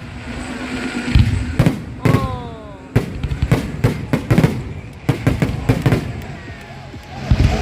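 Fireworks display: many sharp bangs at uneven spacing, coming thickest in a rapid cluster in the middle.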